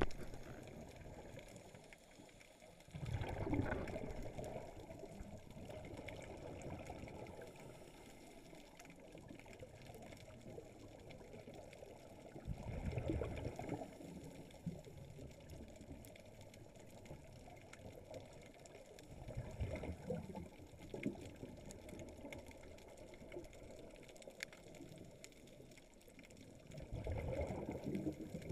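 Scuba diver's exhaled bubbles gushing from the regulator, heard underwater: four bursts about seven seconds apart, one per breath, with a faint steady water hiss between them.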